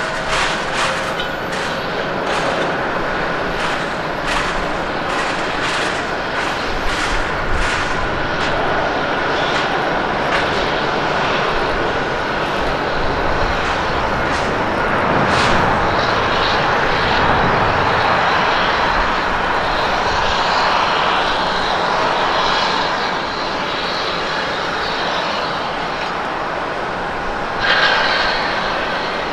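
Airbus A350-900's Rolls-Royce Trent XWB turbofans at takeoff power as the jet rolls down the runway and lifts off: a continuous jet roar that swells as the aircraft passes about halfway through. A run of sharp ticks sounds over the first several seconds.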